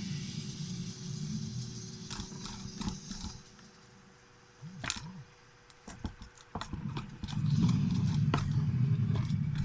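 Fluffy slime being squeezed and poked, giving a string of sharp wet clicks and pops. A low rumble is present at first, drops away after about three seconds, and returns louder from about seven seconds in.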